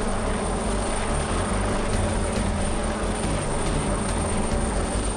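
Helicopter hovering close by: the steady, fast beat of the main rotor over engine noise, with a thin, steady high whine.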